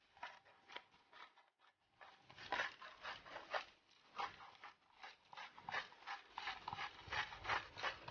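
Hand salt grinder being twisted, its grinding head crunching salt crystals in a rapid run of gritty clicks, about four a second, louder from about two seconds in.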